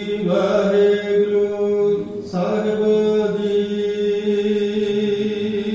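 A single voice chanting Sikh scripture in a held, nearly level tone, in two long phrases with a short break about two seconds in: the hukamnama being recited in the gurdwara's chanting style.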